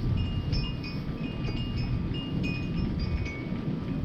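Wind chimes tinkling with scattered high ringing notes over a steady low rumble, which the listeners take for constant distant thunder, likened to planes continually taking off.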